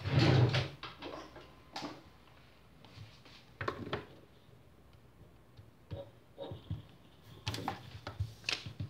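Scattered light clicks and taps of small plastic parts being handled on a workbench: a syringe and plastic tubing being fitted to a MAP sensor to pressurise it. The loudest bump comes at the very start, and a quick run of taps comes near the end.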